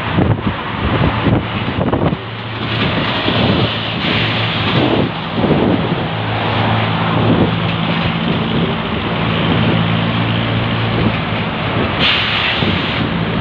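A bus driving along a road, heard from inside: its engine runs with a steady low hum under road and wind noise. A short burst of brighter hiss comes near the end.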